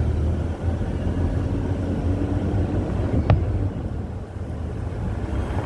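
A single sharp firework bang a little past three seconds in, over a steady low vehicle rumble.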